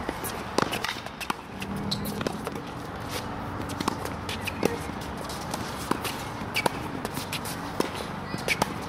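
Tennis balls struck with a racket and bouncing on a hard court, sharp pops roughly once a second, with sneakers shuffling on the court surface between shots.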